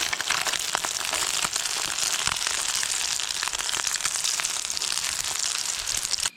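Eggs frying in hot oil: a loud, steady sizzle dense with spattering crackles, cut off suddenly near the end.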